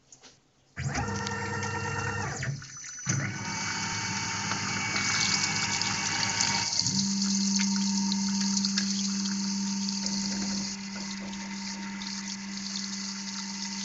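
Tormach PCNC 1100 CNC mill starting a spot-drilling cycle with a long center drill in aluminum: about a second in the spindle starts, then a steady hiss of liquid spraying sets in, and a steady low hum joins about seven seconds in.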